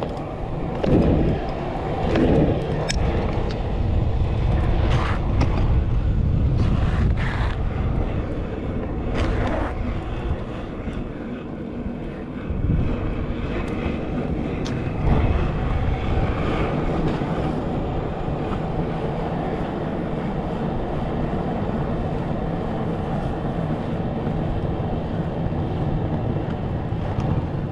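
Pro scooter wheels rolling down an asphalt hill: a steady low rumble, with a few sharp knocks in the first ten seconds.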